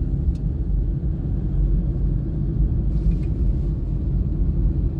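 Steady low rumble of a vehicle driving along a city road, heard from on board, with no change in pitch or loudness.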